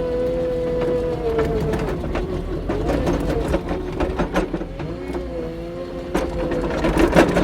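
Kubota SSV65 skid steer's diesel engine running under load, its pitch dipping about a second in and climbing again later, with repeated sharp clanks and knocks from the machine working.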